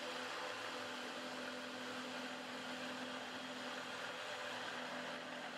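Small CNC mill's spindle running while an end mill cuts 1215 steel in an adaptive clearing pass: a steady, fairly faint hiss with a low hum.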